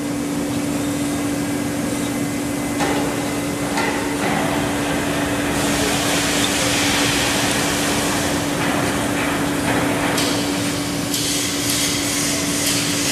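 Light metallic knocks and handling noises from hands working parts inside a lathe's coolant collector housing, a few scattered taps, over a steady machine hum and shop noise.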